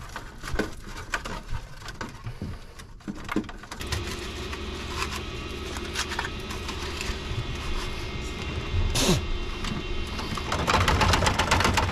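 Dry bird-nest twigs and grass rustling and crackling as a hand drags nest debris out through an access hole in an aircraft's aluminium belly, loudest in a burst of scraping near the end. A steady mechanical hum comes in about four seconds in.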